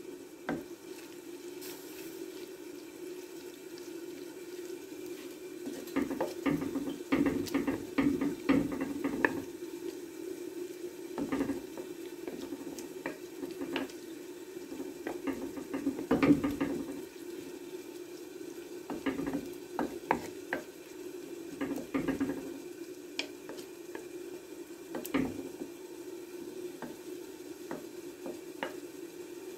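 A spoon stirring and scraping in a clay tagine, with irregular clusters of knocks and clicks against the pot, over a steady gentle sizzle of onion, tomato and spices frying on low heat.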